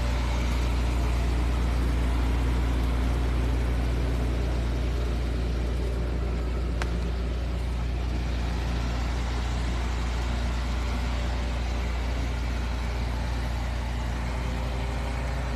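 An engine running steadily at a constant speed with an even low hum, and a single sharp click about seven seconds in.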